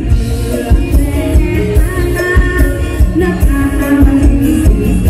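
Live Isan mor lam band playing a song with a steady drum beat, electric bass and keyboard, and a woman singing the melody into a microphone.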